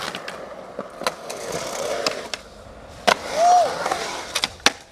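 Skateboard rolling through a concrete bowl: a steady wheel rumble on the concrete, broken by several sharp clacks and knocks from the board. About three and a half seconds in there is a brief tone that rises and falls.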